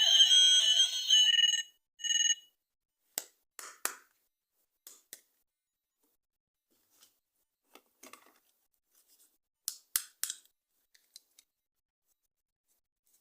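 An electronic toy sound chip plays a shrill ringing tone of several steady pitches, which cuts off after about a second and a half, then gives one short beep. Scattered light plastic clicks and rustles of handling follow.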